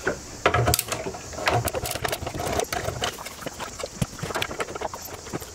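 Small cordless screwdriver whirring in short bursts, mixed with clicks and knocks of screws and cables being handled at an inverter's battery terminals.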